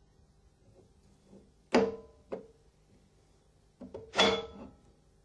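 Metal pump parts knocking together with a short metallic ring, twice loudly and a couple of times softly, as the backplate of an Alfa Laval LKH centrifugal pump is guided onto its adapter.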